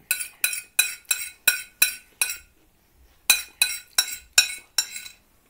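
Metal cutlery clinking and scraping on a plate in quick repeated strokes, about three a second, each leaving a short ringing tone from the plate. There are two runs with a brief pause in the middle.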